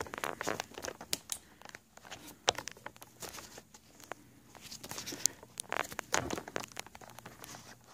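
Close-up handling noise of a phone camera being set up in its holder: irregular light clicks, taps and rustles.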